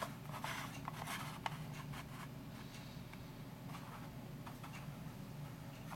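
Light handling noise from a plastic collectible figure being turned in the hands: a few soft clicks and rubbing scrapes in the first two seconds, then only a faint steady room hum.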